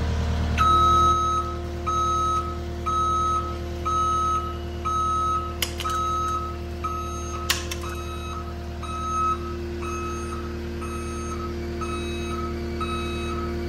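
Caterpillar 259D3 compact track loader's backup alarm beeping about twice a second over the steady idle of its diesel engine: the machine is in reverse, turning the tracks backward. Two sharp clicks come near the middle.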